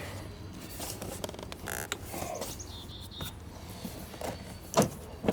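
Plastic interior door panel of a Kenworth W900 truck creaking and squeaking as it is pulled away from the door and lifted off its mounts, with a few sharp clicks near the end.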